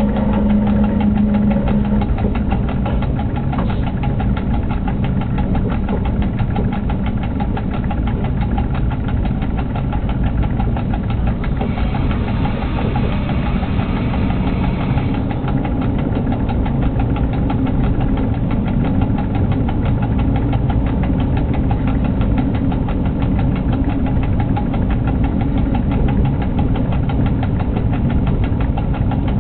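Running noise inside the cab of an SBB Cargo electric locomotive under way: a steady, loud rumble with a fast, even pulsing. A low hum stops about two seconds in, and about halfway through a higher tone sounds for a few seconds.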